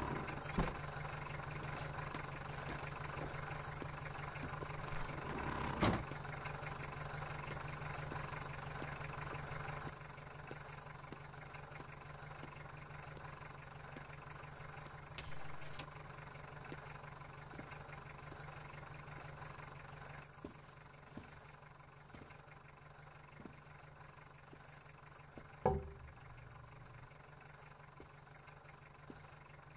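A car engine idling with a steady low hum, which gets fainter after about ten seconds. There is a thud about six seconds in and another near the end.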